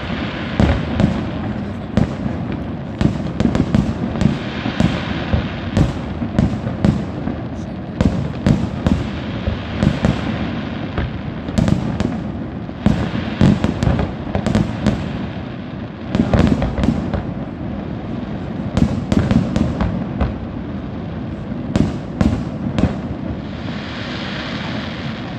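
Fireworks display: aerial shells bursting in rapid, overlapping bangs, with stretches of crackling from glittering stars about five seconds in and again near the end.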